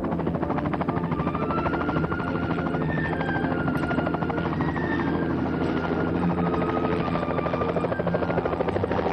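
Mi-1 helicopter flying: its piston engine and rotor run steadily with a rapid, even pulsing throughout.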